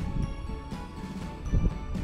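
Background music: held tones over deep, irregular low hits.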